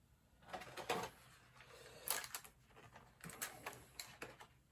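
Light, irregular clicks and rustles of a plastic action figure and its small plastic accessories being handled.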